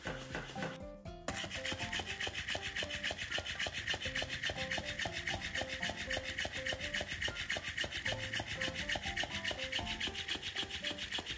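Electric flopping fish dog toy wriggling on a floor mat: a fast, even rasping rhythm from its motor and slapping tail, starting suddenly about a second in and stopping near the end.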